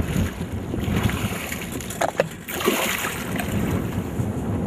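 A hooked dorado thrashing and splashing at the water's surface, over a low rumble of wind on the microphone and choppy water, with a few sharper splashes around the middle.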